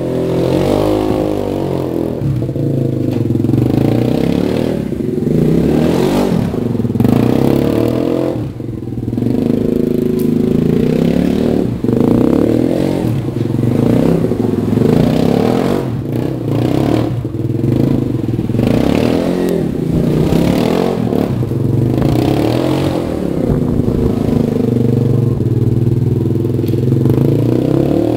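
Suzuki LTZ250 quad's single-cylinder four-stroke engine revving up and down again and again as the quad drifts in circles on snow, with the throttle easing off briefly about a third of the way in.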